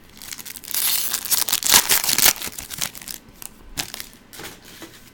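Foil trading-card pack wrapper crinkling as it is torn open, loudest for about a second and a half near the start, then a few lighter crackles as it is handled.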